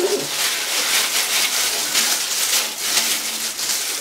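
Plastic-gloved hands rubbing hair dye through wet hair: a steady wet rubbing with fine crackling.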